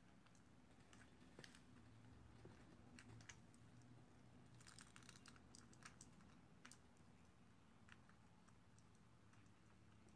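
Near silence: faint room tone with a low hum and scattered small clicks, a short cluster of them about halfway through.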